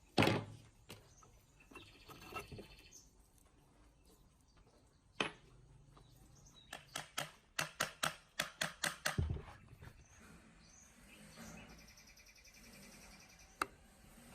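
Hand-tool work on a workbench: a sharp knock, another about five seconds in, then a quick run of about nine taps, with fainter rasping scrapes before and after.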